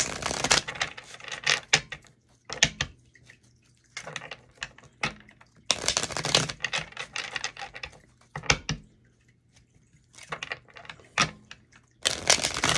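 A deck of tarot cards being shuffled by hand: quick flurries of card clicks and flicks, in about half a dozen bursts with short pauses between them.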